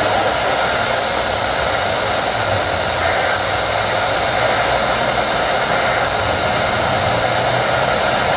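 Weather radio receiver's speaker giving a loud, steady static hiss, with no voice or tones coming through.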